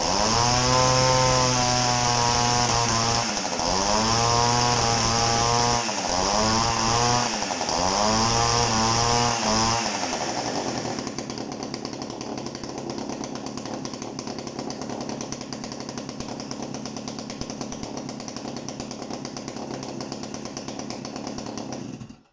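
Dolmar CP two-man chainsaw's two-stroke engine revved up and let back four times. It then settles to a steady idle for about ten seconds and cuts off abruptly near the end as it is shut down.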